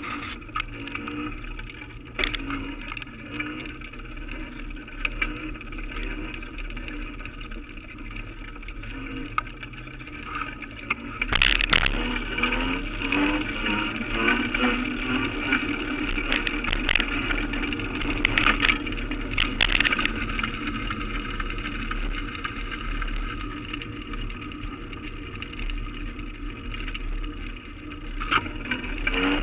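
Steady street and road noise picked up by a camera on a moving mount, with a few short clicks. It gets louder and brighter from about eleven seconds in.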